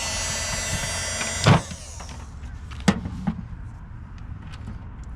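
Ryobi 18V cordless heat pen running with a steady, high motor whine. It shuts off with a knock about a second and a half in, and a couple of sharp clicks follow.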